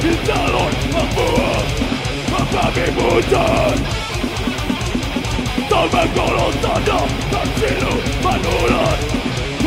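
Death metal band playing live through a PA: rapid drumming with distorted electric bass and guitars, and a vocalist singing into the microphone over it.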